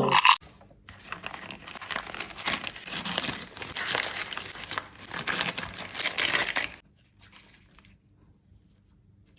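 Plastic or foil snack wrapper crinkling as it is handled, for about six seconds, then it stops.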